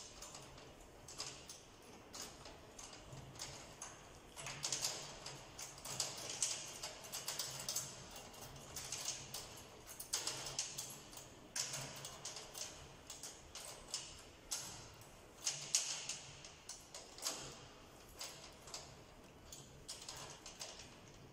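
Tension rods on a PDP bass drum being finger-tightened one by one during head tuning: irregular metallic clicks, ticks and small rattles from the rods, lugs and hoop.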